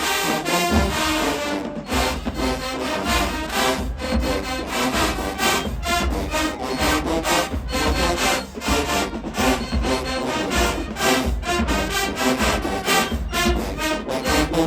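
HBCU marching band playing a loud, driving number, with horns over a steady beat of bass drums and percussion.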